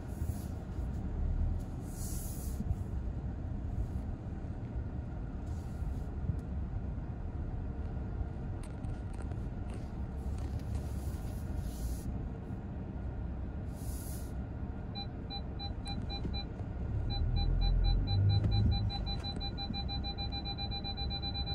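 Skoda Kodiaq's parking-sensor warning beeping, starting about 15 seconds in with a few beeps a second that speed up until the tone is nearly continuous near the end, the sign of an obstacle drawing close while parking. Under it is the low cabin rumble of the car creeping along.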